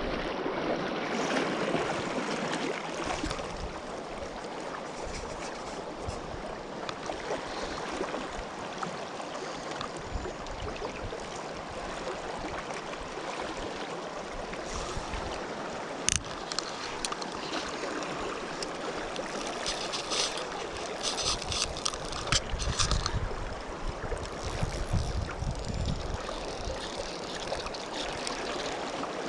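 Steady rush of a shallow, riffled river flowing over rocks. There is one sharp click about sixteen seconds in, and low rumbles come and go later on.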